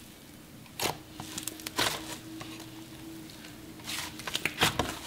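Thick, cloud-dough-textured slime being squeezed and pulled apart by hand, giving soft crackling, tearing sounds: one burst about a second in, another near two seconds, and a quick cluster near the end.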